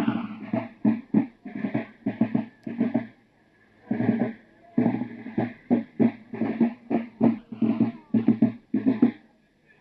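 Field drums beating a marching cadence: quick groups of strikes and rolls, with a short break a little after three seconds in.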